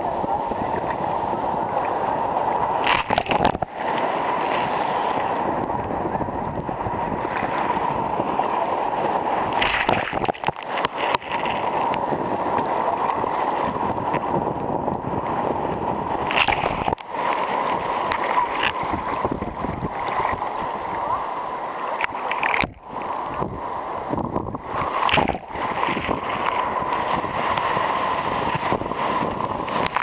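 Breaking sea surf and foam washing around a camera held at water level: a loud, steady rush of churning water, broken several times by sudden splashes and brief drop-outs.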